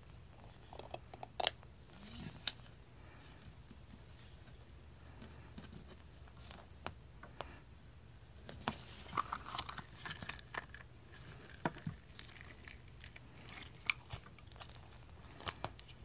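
Hands squeezing and handling a spiky rubber squishy toy: scattered soft crackles and small clicks, sparse for a few seconds in the middle and busier again in the second half.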